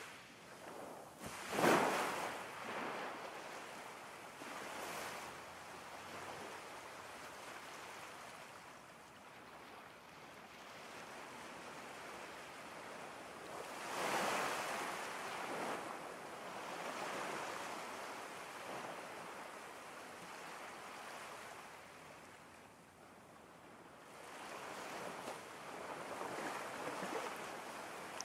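Ocean ambience: a continuous wash of water noise that swells and ebbs. It is loudest in a sharp surge about two seconds in, with further swells around the middle and near the end.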